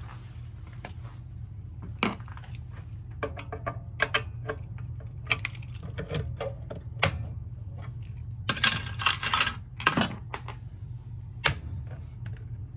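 Metallic handling sounds: scattered clicks and knocks and a jangle of keys, with a denser rattling stretch near the end, over a steady low hum.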